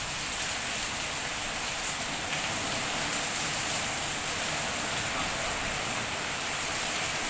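Heavy rain pouring steadily in strong wind, with an even hiss and a fluttering low rumble underneath.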